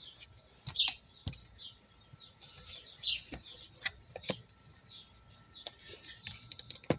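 Birds chirping over and over in the background, with a few sharp clicks and knocks mixed in.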